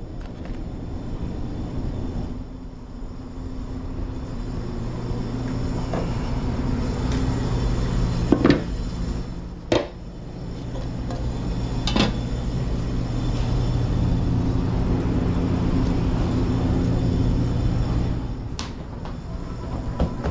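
Steady low hum of restaurant kitchen equipment, with a few sharp clatters of metal utensils and dishes being handled, the loudest a little after eight and nine seconds in.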